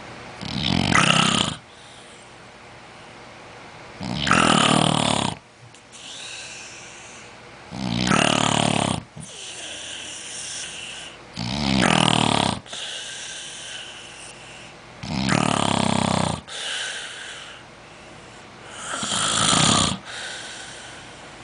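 Snoring in a steady rhythm: six loud snores, one about every three and a half to four seconds, each followed by a fainter breath out.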